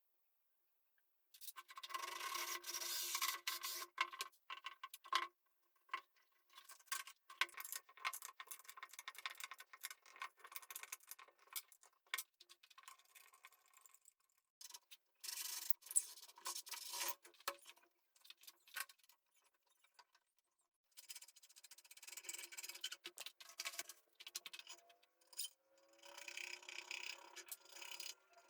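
Hand work on wood in a workshop: stop-start rubbing and scraping strokes, in spells of a few seconds, broken by many small clicks and knocks.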